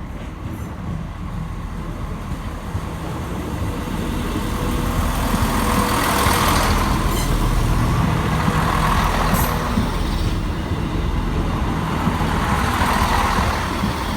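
Diesel train engine running at the platform, its rumble growing louder from about four seconds in, with hissing swells over it.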